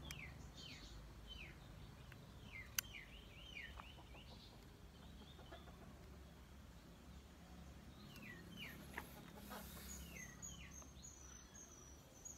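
Faint bird chirping: short falling notes repeated in quick runs, pausing midway and returning near the end. A single sharp click sounds about three seconds in.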